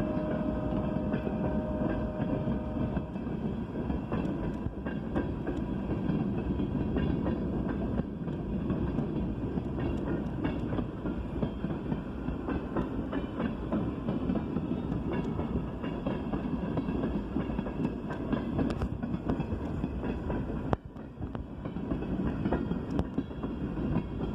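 A long train's cars rolling past close by: a steady rumble of wheels on rails, with rapid irregular clicking over the rail joints. A faint steady tone sounds over it for the first three seconds or so.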